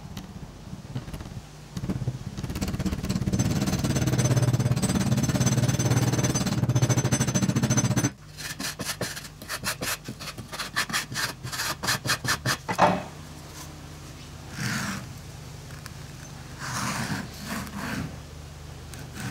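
Homemade green sand being packed into a wooden moulding flask, a dense rubbing and scraping for several seconds. Then a wooden strike-off bar is scraped back and forth across the flask top in quick, regular strokes that stop about thirteen seconds in. A few quieter knocks and scrapes follow as the flask is handled.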